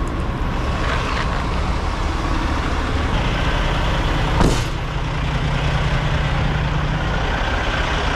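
Diesel semi-truck engines idling as a steady low rumble, with one short burst of hiss about four and a half seconds in.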